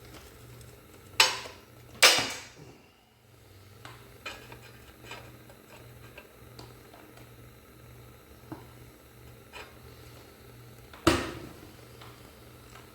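Metal clanking as parts and tools are worked on a steel vehicle frame: two loud clanks about a second apart near the start and another near the end, each ringing briefly. Lighter metal clinks fall between them.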